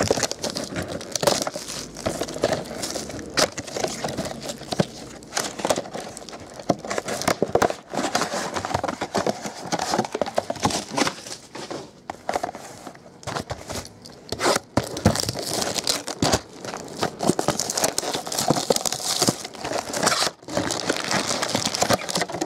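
Plastic shrink wrap being torn off sealed trading-card boxes and crumpled by hand: a steady crinkling with many sharp crackles and snaps, along with the light knocks of cardboard boxes being handled.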